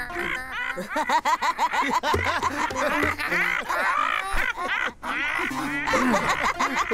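Cartoon crows laughing, voiced by actors as a long, fast run of cackling ha-ha-has.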